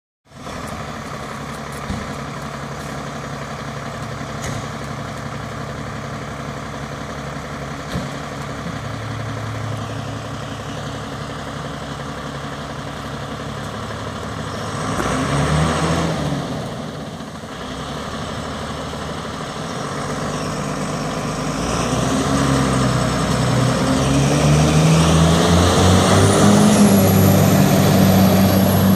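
Fire engine's diesel engine running, with a brief rush of noise about halfway through, then revving harder and getting louder over the last several seconds as the appliance pulls away, its engine note rising.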